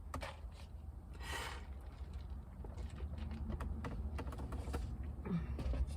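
Scattered light clicks and taps, with a short breathy rush about a second and a half in, over a steady low hum.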